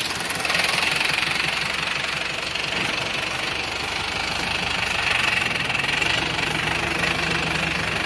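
Tractor's diesel engine running steadily under load while pulling a tine cultivator through the soil.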